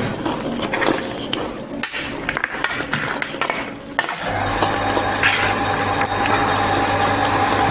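Metal spoon clinking and scraping against a plate while scooping rice, along with eating noises. About four seconds in, a steady low hum with a held tone starts and carries on.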